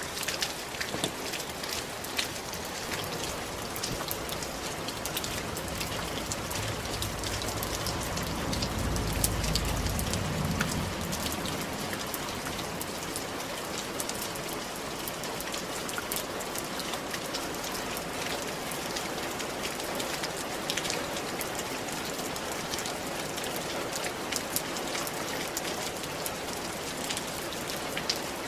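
Steady rain falling on roof tiles: an even hiss dotted with countless sharp drop ticks. A low rumble swells briefly about eight to eleven seconds in.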